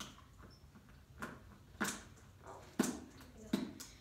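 A snowboard knocking against a low wooden box, four short knocks at uneven intervals.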